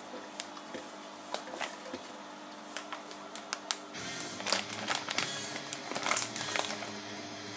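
Crinkling and crackling of a bag of powdered beer enhancer being shaken out into a plastic fermenting barrel, scattered clicks at first and busier, louder crackling from about halfway, over soft background music.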